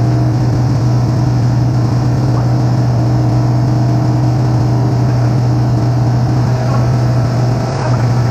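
Loud, steady machinery hum of an ammonia refrigeration engine room, a deep even drone with fainter higher tones over it.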